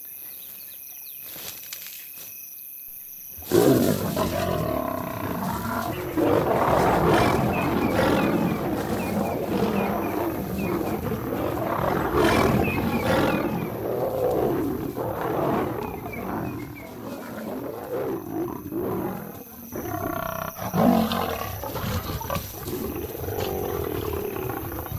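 Lions fighting, snarling and roaring, breaking out suddenly about three and a half seconds in over the steady chirping of crickets.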